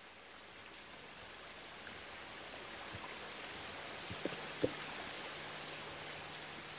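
Steady rush of flowing river water that swells slightly over the first few seconds, with two small knocks a little after four seconds in.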